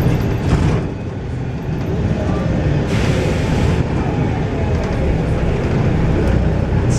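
Volvo B7RLE bus's diesel engine running steadily, with a short hiss of released compressed air from the bus's air system about three seconds in, lasting about a second.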